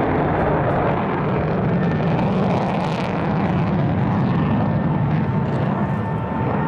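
The twin Pratt & Whitney F100 turbofans of a JASDF F-15 Eagle fighter, heard from the ground as a steady, even jet roar while the jet banks through a turn.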